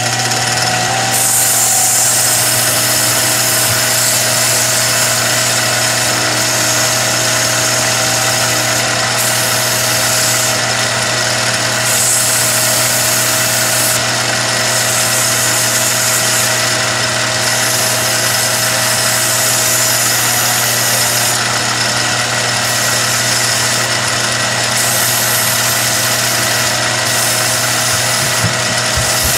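Professional billiard cue lathe running steadily with a constant low hum, spinning a cue shaft while 400-grit sandpaper is held against the tip and ferrule to blend them flush. A high sanding hiss rises and falls in stretches over the motor sound.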